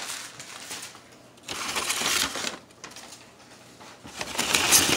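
Crumpled newspaper packing rustling and crinkling as it is handled, in two spells: about a second and a half in, and again near the end.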